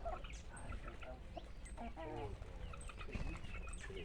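Chickens clucking, with small birds chirping high over them.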